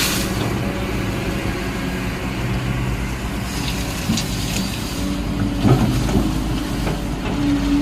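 Kobelco excavator's diesel engine running steadily, with a few short knocks about six seconds in.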